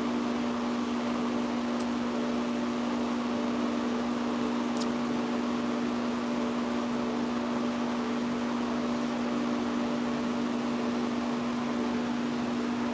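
Steady electrical hum of a running motor, with one strong constant low tone and fainter tones above it.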